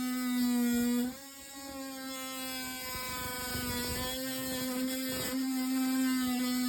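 An electric power tool's motor running at a steady, high whine. The level drops briefly about a second in, then the motor runs on.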